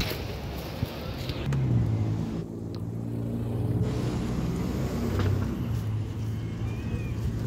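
A motor vehicle's engine running close by: a steady low hum that sets in about a second and a half in and holds on, with a light knock or two.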